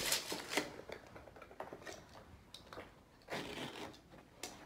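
Short bursts of rubbing and scraping of hands and tools on carpet as the carpet is measured and marked, the strongest at the start and about three seconds in, with a light click near the end.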